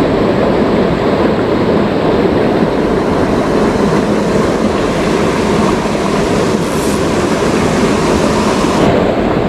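Fast-flowing river water rushing over rocks and rapids: a loud, steady noise of water.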